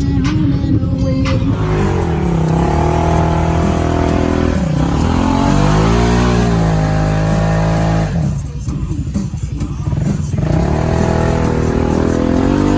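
Side-by-side off-road vehicle's engine revving up and down under throttle, its pitch rising and falling in slow sweeps. It drops back briefly about eight seconds in, then picks up again.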